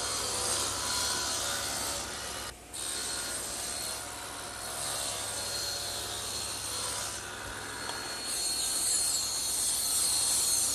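Power tool cutting wood, a steady running whine with the noise of the cut, broken briefly about two and a half seconds in; the cutting shapes a small T molding.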